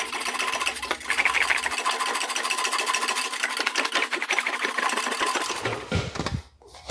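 English wheel rolling a sheet-metal panel back and forth: a fast, even metallic rattle that stops about six seconds in. These are smoothing passes to clean up the panel after heavy shaping.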